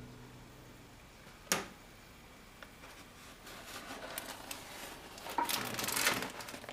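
A microwave door clicks open about a second and a half in. The paper microwave popcorn bag is then taken out and handled, and it rustles and crinkles, loudest near the end.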